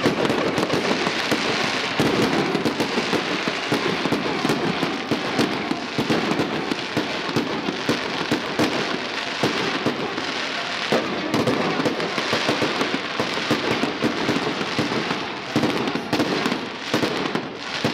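Aerial fireworks display: a continuous barrage of crackling and popping as many comets and shells launch and burst in quick succession, with no pause.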